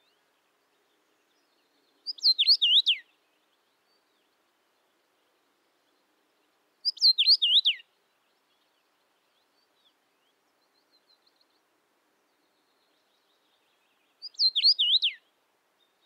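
Male common rosefinch singing its slurred whistled song, the phrase known in Russian as "Витю видел?" ("pleased to meet you" in English). The phrase comes three times, each about a second long and several seconds apart, its whistles sliding up and down.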